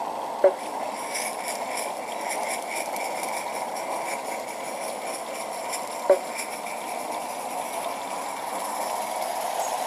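A G-scale garden-railway locomotive running steadily across a metal girder bridge, with a fast run of light clicks from the wheels and track. Two short, sharp chirps stand out, about half a second in and again about six seconds in.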